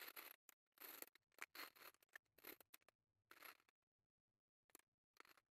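Faint, irregular scratchy rustles, each a few tenths of a second long, with short stretches of near silence between them.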